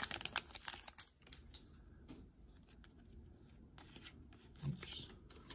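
Faint rustling and light clicks as Pokémon cards are slid out of a torn foil booster wrapper and handled in a stack, with a slightly louder rustle near the end.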